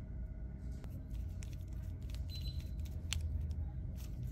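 Small scattered clicks and scrapes of a screwdriver turning a screw terminal on a plastic pluggable terminal block while the wire is clamped, over a steady low background rumble.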